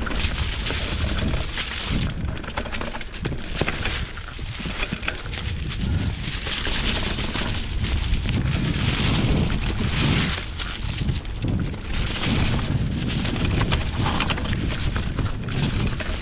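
Wind buffeting the microphone over the noise of a 2020 Specialized Pitch mountain bike rolling fast downhill on a dirt trail covered in dry leaves: tyres crunching over leaves and dirt, and the bike knocking and rattling over bumps.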